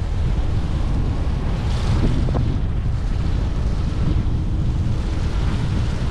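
Wind buffeting the microphone of a camera on a moving electric scooter: a steady low rumble with a hiss over it, typical of riding on a wet road in the rain.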